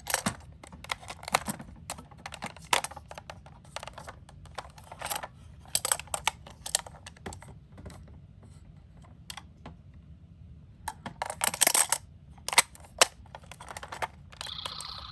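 Miniature toy ambulance cars clacking and clattering as they are picked up and knocked together, in irregular clicks with a quiet pause midway and a dense flurry near the end. Just before the end a toy's electronic siren starts up with a steady tone.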